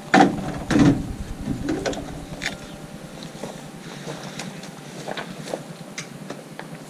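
Metal frame of a folding canvas camp cot knocking and scraping as it is lifted and slid into a pickup bed. Two loud knocks come in the first second, followed by lighter clicks and rubbing.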